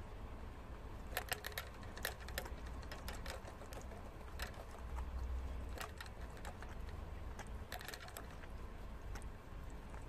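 Prairie dog drinking from the metal sipper spout of a hanging water bottle: irregular small clicks and ticks of its mouth working the spout, coming in uneven clusters.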